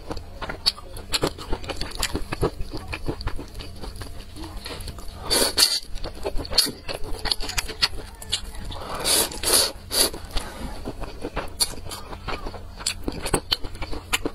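Close-miked eating of spicy Nanchang rice noodles: steady wet chewing and mouth clicks, with two longer noodle slurps about five seconds in and again around nine to ten seconds.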